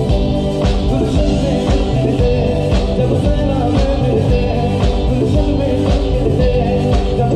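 Live band playing amplified music, with electric bass guitar, electric guitar and a drum kit keeping a steady beat.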